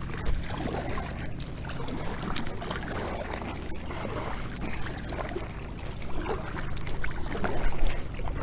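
Kayak paddling: the paddle blades dip into the lake and water trickles and splashes off them, over a steady low rumble.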